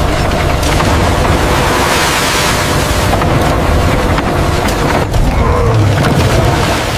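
Paper machine press rolls running: a loud, steady mechanical rumble with a constant rushing noise over it, dipping briefly about five seconds in.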